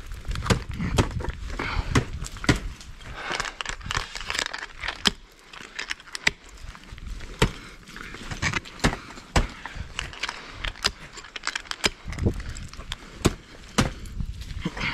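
Ice climbing gear in use: many irregular sharp metallic clicks and jangles of carabiners and hardware, mixed with knocks and scrapes of ice tools and crampons against the ice.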